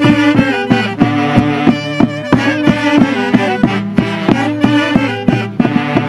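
Traditional Huancavelica Santiago folk music from a brass-and-reed orquesta, saxophones carrying the melody over a steady beat.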